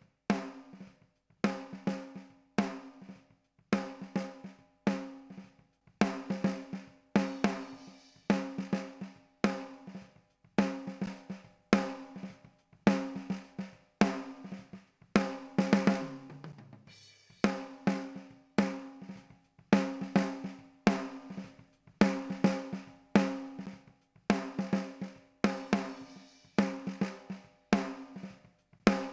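Drum kit playing a steady beat that starts out of silence: strong kick and snare hits about once a second with lighter hits between. A low falling tone sounds around the middle.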